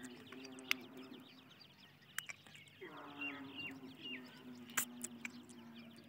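Francolin chicks peeping, a fast stream of small high calls, with a few louder short falling notes about halfway through and several sharp clicks. A low drawn-out tone runs underneath.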